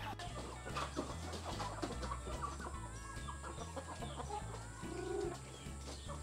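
Native chickens clucking, with scattered short calls and one short, lower call about five seconds in.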